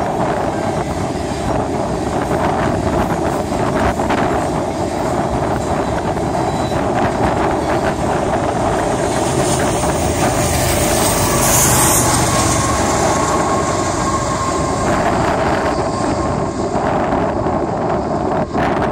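Steel wheels of a long freight train's open-top hopper cars rolling past close by: a steady rumble of wheel on rail with clickety-clack over the rail joints.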